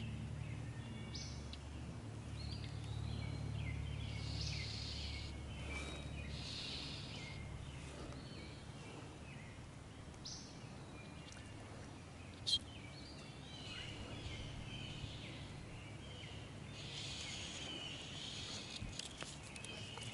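Songbirds calling and singing in the woods, many short chirps and phrases throughout, over a low rumble that eases after about eight seconds. A single sharp click comes about twelve seconds in.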